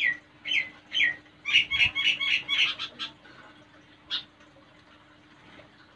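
Monk parakeet calling: three short falling squawks about half a second apart, then a fast run of chattering calls at about five a second, with a last single call about four seconds in.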